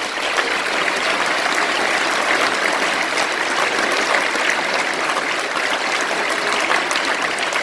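A large audience applauding: a dense, even clatter of many hands clapping at once.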